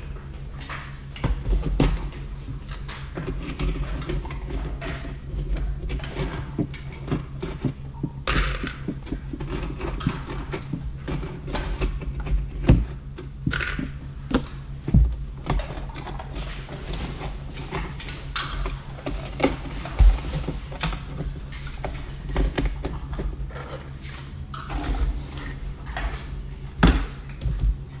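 Hands handling Play-Doh and a plastic mold: irregular small clicks, taps and knocks of plastic, with a few louder knocks, over a steady low hum.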